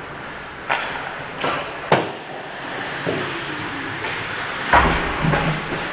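Ice hockey play in a reverberant rink: sharp clacks of sticks and puck, three in the first two seconds and a heavier hit near the end, over a steady scrape of skates on the ice.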